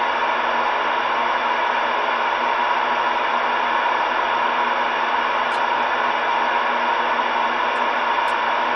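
CB radio receiver hissing steadily through its speaker: open-squelch static with no station transmitting.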